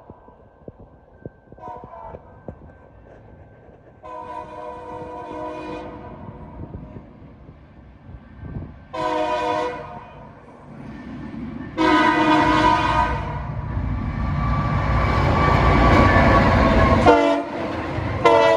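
Union Pacific diesel locomotive sounding its multi-note air horn for a road crossing in a run of long and short blasts. The locomotive's engine and wheel rumble grow louder until it passes close, about two-thirds of the way in, and the horn sounds again near the end.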